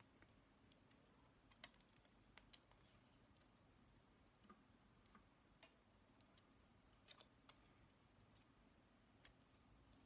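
Near silence broken by faint, irregular small clicks and ticks as fingers untwist the twisted copper wire pairs of a CAT5e cable.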